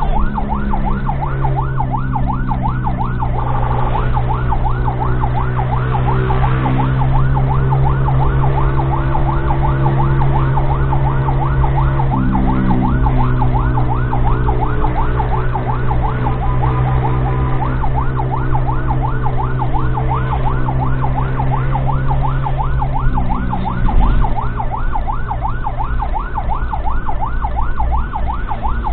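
Ambulance siren in a fast yelp, rising and falling about four times a second without a break, heard from inside the ambulance. A steady low drone of the vehicle runs underneath and shifts in pitch twice.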